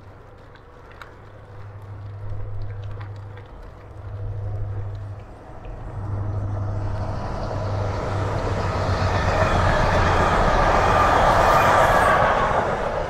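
Container freight train passing alongside on the rail line, its noise swelling from about six seconds in and loudest near the end as the wagons run level.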